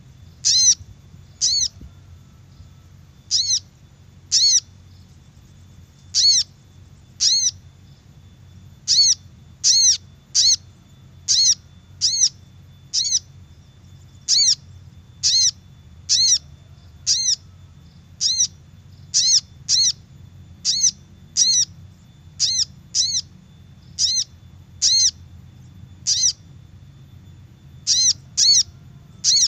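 Crimson sunbird (sogok ontong) call played as a lure: a short, sharp, high call repeated about once a second, sometimes in quick pairs, over a faint low hum.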